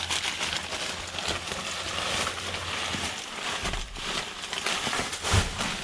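Plastic bags rustling and crinkling as someone rummages through a bag of discarded groceries, with a low hum in the first half and a dull thump near the end.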